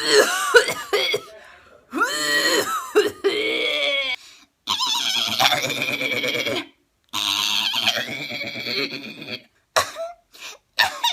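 A woman doing exaggerated, voiced coughing fits in four long hacking bouts, followed by a few short coughs near the end.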